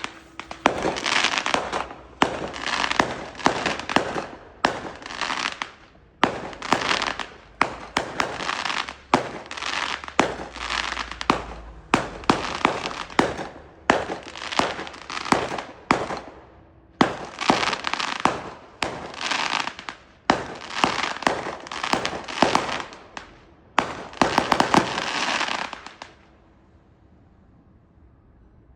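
Fireworks going off in a rapid run of loud bursts, each a sharp bang followed by a dense crackle of pops, about one burst every second or so. They stop a couple of seconds before the end.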